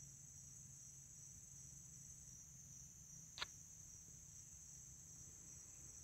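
Faint, steady chorus of crickets making an even high-pitched drone, with a single soft click about three and a half seconds in.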